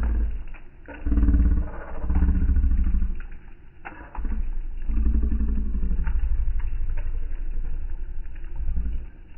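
Deep, rough growling in several long stretches, the longest running from about four seconds in to near the end. Campfire crackling sounds under it, with scattered sharp pops.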